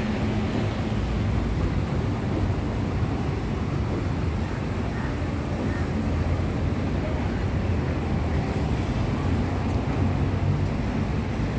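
City street ambience: a steady low hum of vehicle engines and traffic, with people's voices mixed in.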